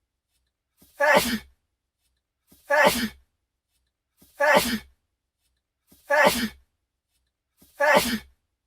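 A man's sneeze, the same sneeze looped at even intervals, five times about 1.7 seconds apart. Each one is a faint intake followed by a sharp, loud sneeze, with silence between.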